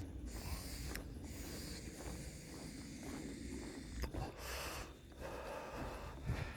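A person breathing while walking, a few brief breaths standing out about four seconds in, over a steady low rumble and the odd click of handling on the phone's microphone.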